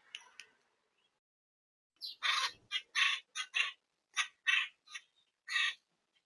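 Blue jay giving a quick series of about eight short, harsh, rasping calls, starting about two seconds in.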